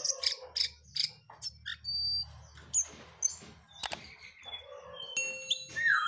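Caged jongkangan songbird singing vigorously: a busy run of quick high chirps and short whistled notes, with a single sharp click about four seconds in.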